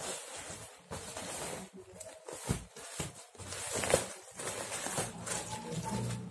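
Plastic courier bag rustling and crinkling in irregular bursts as it is handled and turned over.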